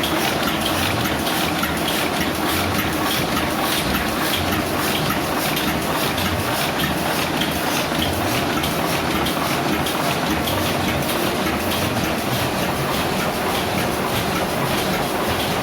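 Single-colour printing press running steadily, a dense, even mechanical clatter with a rapid, regular beat.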